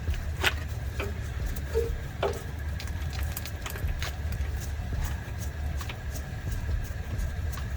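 A car engine idling with a steady low exhaust rumble. Scattered light clicks and knocks of work on the brake parts sound over it.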